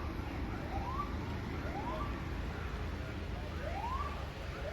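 School fire alarm sounding a repeated rising whoop tone, about one upward sweep a second, over a low background rumble.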